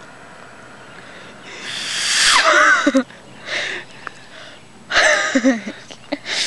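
Breath blown hard through a blade of grass held between the thumbs, making three breathy rushes of air rather than a clean whistle. The longest builds up about two seconds in, and the first and last end in a short wavering squeak.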